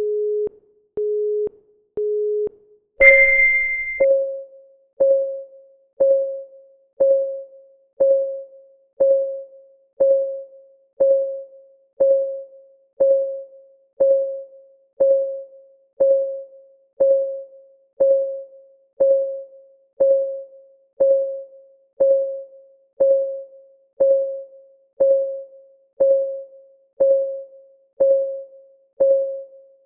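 Countdown timer's start signal, three short low electronic beeps a second apart and then a higher, louder start beep, followed by clock ticking once a second, each tick a short pitched tock that dies away quickly.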